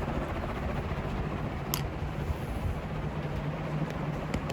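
1978 SMC 60F industrial ceiling fan running on high: a steady low motor hum under the rush of air from its heavily pitched blades, with a brief click a little under two seconds in.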